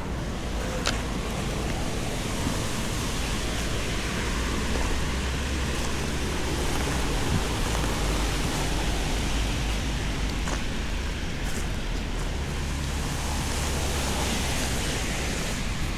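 Steady wind buffeting the microphone with a hiss of rain, and a few faint ticks.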